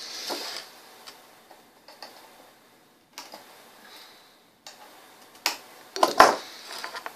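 Scattered light clicks and taps of tools and parts being handled while soldering components onto a circuit board, with a louder clatter about six seconds in.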